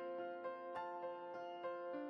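Quiet instrumental background music: a gentle melody of struck notes, a new note about three times a second.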